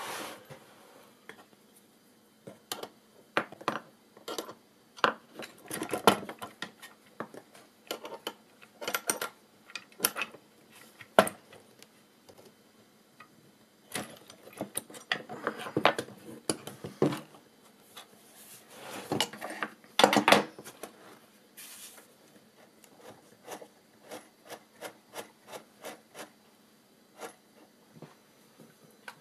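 Wooden pedal parts and a threaded rod being handled and fitted together: scattered knocks and clicks with several short scraping stretches of metal and wood rubbing. Near the end comes a run of evenly spaced ticks, about two or three a second.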